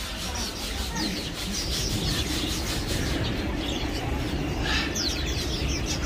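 Small caged songbirds chirping in short high calls over a steady background din. A quick run of short falling chirps comes about five seconds in.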